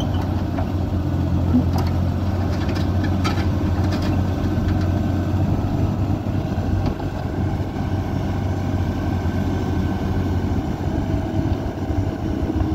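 Kubota KX91-3 mini excavator's three-cylinder diesel engine running steadily under load as it climbs steel loading ramps onto a truck trailer, its boom and bucket levering it up. A few light metal clicks come about two to four seconds in.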